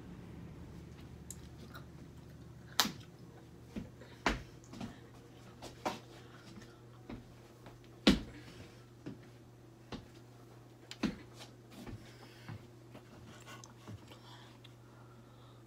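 Irregular sharp clicks and light knocks, about a dozen spread out, the loudest about 3 and 8 seconds in, over a faint steady low hum.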